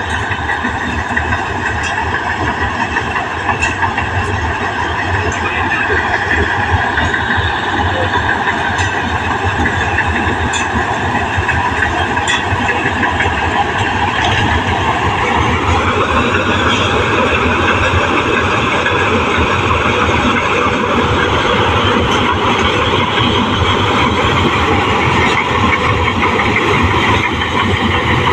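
New Holland 8070 combine harvester running steadily, its engine and threshing machinery a continuous loud drone; about halfway through the pitch rises and then holds at the higher speed.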